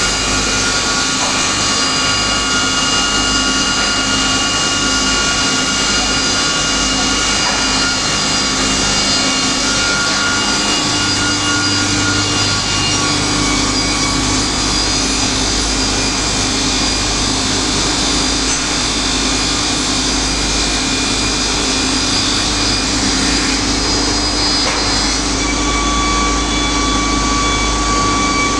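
Multi-rip saw machine with automatic feeder running under load: a loud, steady mechanical noise with several held tones that shift slightly about 11 seconds in and again near the end.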